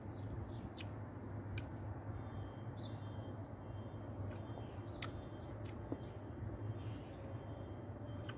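Steady low background hum with a scattered handful of short, sharp high chirps or clicks.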